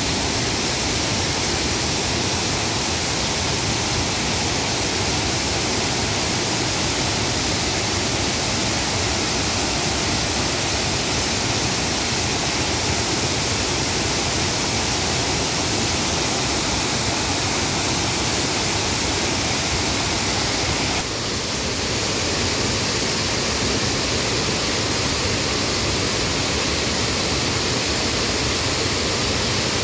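Waterfall running high after heavy rains: a steady rush of falling water, its tone shifting slightly about two-thirds of the way through.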